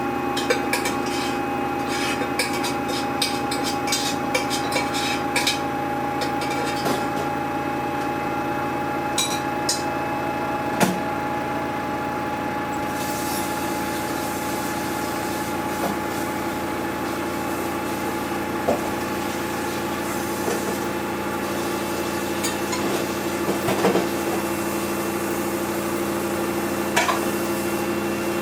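Samsung washing machine running its cycle with a steady motor hum, while the trainers inside knock and clatter against the drum: many quick knocks in the first few seconds, then single knocks every few seconds.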